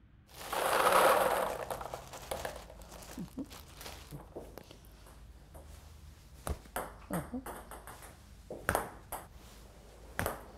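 Table tennis balls clicking off a bat and bouncing on the table in solo serve practice, as a series of sharp, irregularly spaced clicks. A loud burst of noise fills the first couple of seconds.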